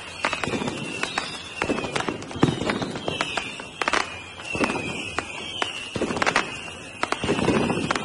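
Fireworks going off: many sharp bangs and crackles, several rumbling booms, and repeated whistling tones that slide down in pitch.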